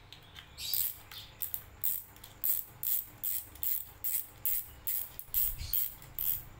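Spinning reel's front drag knob clicking as it is twisted off to remove the spool: a regular series of sharp clicks, about three a second.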